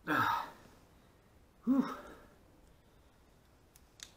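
A man's hard exhale of effort at the start, then a short grunt nearly two seconds in, as he strains to hold up a heavy differential carrier; a light click near the end.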